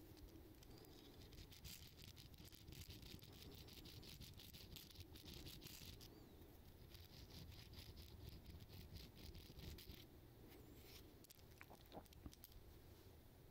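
Faint rasping of a hook sharpener drawn in quick strokes across the points of a fishing lure's treble hook, in two runs with a brief pause about six seconds in and stopping about ten seconds in. A few light clicks follow near the end.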